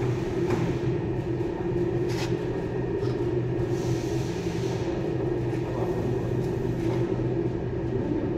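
Three-roller aluminium profile bending machine running steadily, its motor driving the rollers as an aluminium profile is rolled into a curve. A couple of clicks come in the first few seconds.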